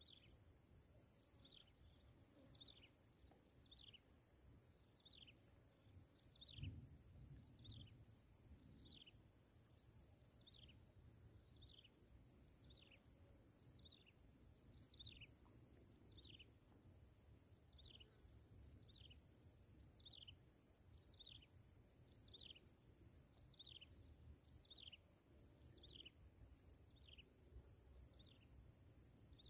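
Faint bird call: one short falling note repeated over and over at a steady pace, a little more than once a second, over a steady high hiss.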